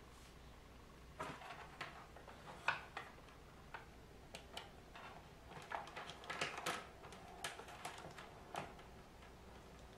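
Faint, irregular plastic clicks and taps from a hand working a digital multimeter and its rotary selector dial, a few single clicks and then a quick run of them in the middle.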